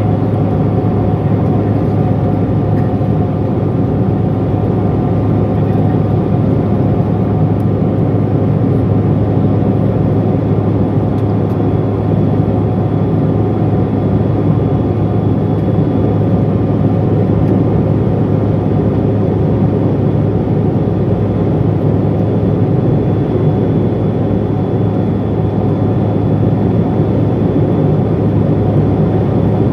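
Steady cabin noise inside a Bombardier CRJ700 regional jet in flight: the rear-mounted GE CF34 turbofans drone as a low rumble with a few steady whining tones over it, unchanging throughout.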